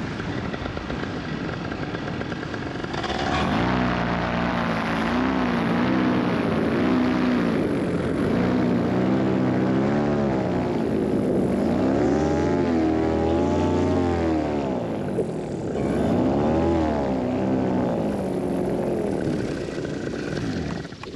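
Two-stroke paramotor engine and propeller running under power on the landing approach. It grows louder about three seconds in, then its pitch rises and falls again and again as the throttle is worked.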